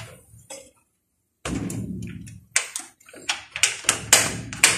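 Metal-mesh screen door being shut and its slide bolt latch worked by hand. A sudden rattle comes about one and a half seconds in, then a run of sharp metallic clicks and rattles, loudest near the end.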